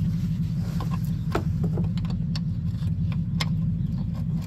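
Sharp metallic clicks and knocks from a ring spanner working the 15 mm undertray bolts, scattered irregularly over a steady low rumble.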